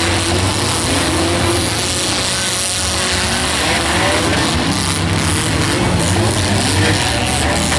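Several demolition derby cars' engines revving up and down together over a steady rumble.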